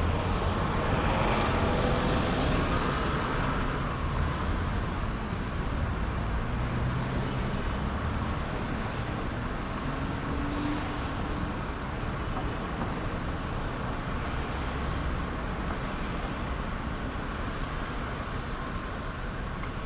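City street traffic: a steady roar of passing motor vehicles, a little louder for the first few seconds as a vehicle goes by close.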